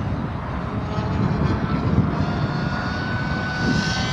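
Radio-controlled model plane's engine droning as it flies past, its note climbing slowly in pitch through the second half, over a heavy low rumble.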